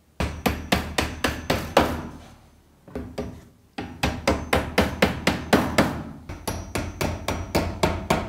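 Claw hammer tapping small nails through a thin fibreboard cabinet back panel, quick sharp strikes about four a second. The strikes break off about two seconds in, resume with one or two blows, then run on steadily from about the middle.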